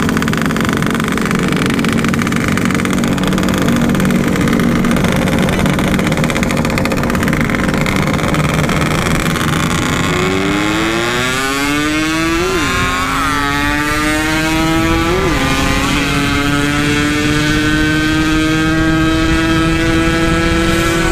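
Yamaha RX-King's 135 cc two-stroke single engine under way at speed over wind rush. About halfway in it pulls hard, rising in pitch through the gears with short dips at each shift, and ends holding a steady high-revving note.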